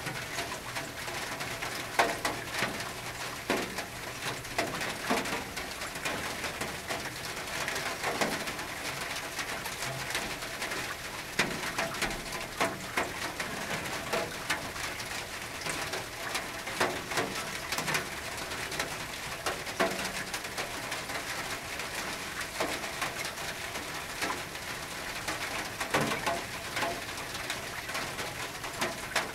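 Rain falling on a tin roof: a steady hiss with irregular louder drops striking the metal.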